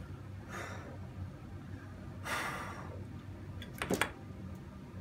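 A soft breath about two seconds in, then a few sharp clicks near the end as a soldering iron is set down on a wooden workbench, over a steady low hum.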